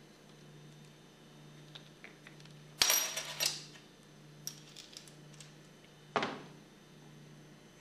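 Metal pump parts clinking against each other and a hard surface. A jangling clatter lasts about half a second, three seconds in, and a single sharp clink comes about six seconds in.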